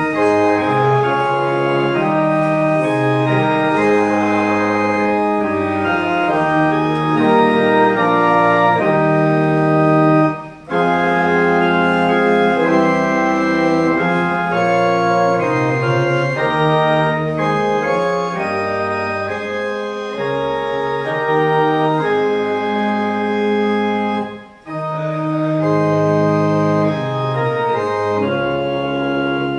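Church pipe organ playing slow, sustained chords that change every second or so, like a hymn. It breaks off briefly twice between phrases.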